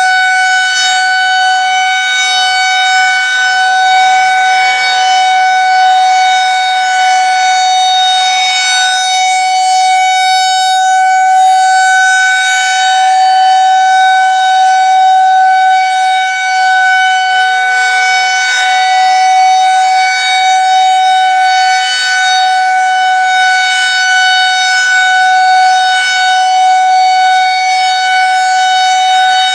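Federal Signal 2001-130 electromechanical outdoor warning siren sounding its steady alert tone for a siren test. It holds one pitch with a stack of overtones, and its loudness swells and dips slightly every few seconds.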